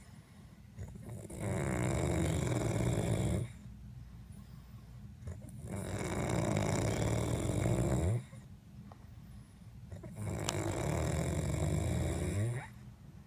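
A person passed out drunk, snoring: three long snores about four seconds apart, with quieter breathing between them.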